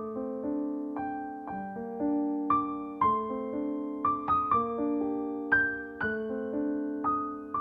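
Background piano music: single notes and chords struck about once or twice a second over held lower notes.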